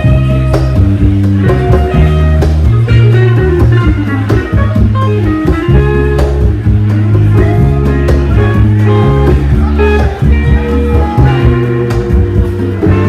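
A band playing a blues-rock tune: guitar over bass notes and drum hits.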